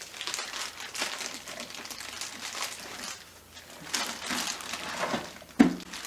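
Plastic bags crinkling and rustling in irregular handfuls as sticky melted marshmallow is scooped into a bag-lined trash can, with one sharp knock near the end.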